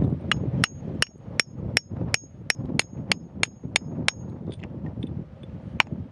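Steel chisel striking rock in quick repeated blows with a short metallic ring, about three a second, a dozen strikes in a row. After a pause there is one more strike near the end.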